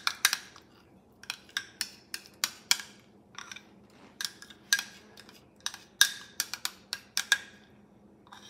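A utensil scraping and knocking against a glass measuring cup to work thick mayonnaise out of it, giving a string of irregular sharp clinks and taps.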